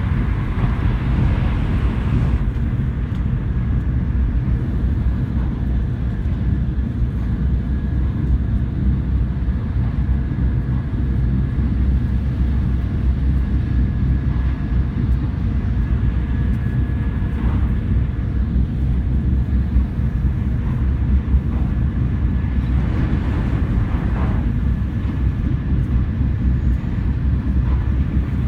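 Shinkansen bullet train running: a steady low rumble with a faint, steady high whine over it.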